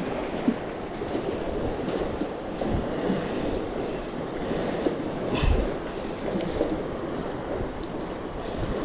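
Wind buffeting the microphone over water lapping, with a brief knock about five and a half seconds in.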